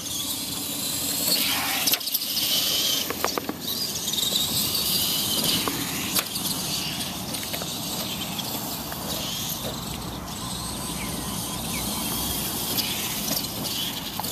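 Radio-controlled Tamiya Clod Buster monster trucks driving over grass, their electric motors whining up and down in pitch, with a few sharp knocks in the first few seconds.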